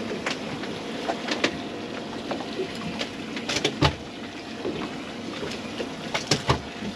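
Steady background noise aboard a boat at sea, with scattered sharp knocks and clicks as gear is handled on deck. The knocks come thickest about three and a half seconds in and again near the end.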